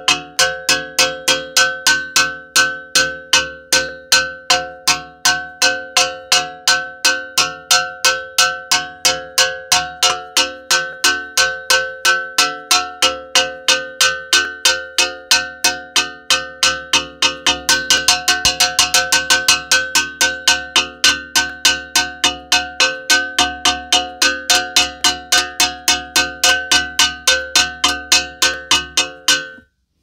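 A metal cooking pot banged over and over, about three clanging strikes a second with a ringing tone between them, quickening briefly about two-thirds of the way through and stopping abruptly just before the end.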